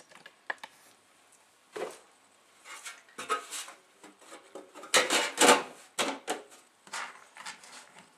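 A twin CD player being turned round on a wooden bench and its metal top casing fitted over the chassis: irregular scraping, sliding and knocking of metal, loudest about five seconds in.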